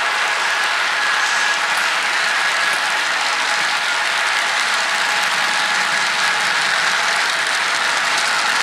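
Model train running on layout track: a steady rattling whir of wheels on rail with a thin, steady motor whine.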